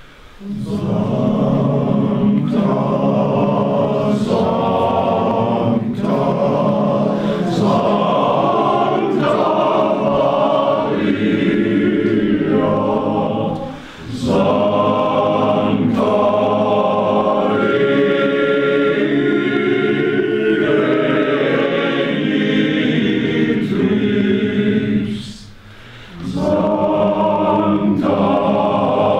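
Men's choir singing with a conductor, pausing briefly twice: once about halfway through and again for about a second near the end.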